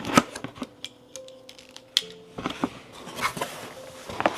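Cardboard box packaging being handled and opened: a run of irregular clicks, taps and rustles.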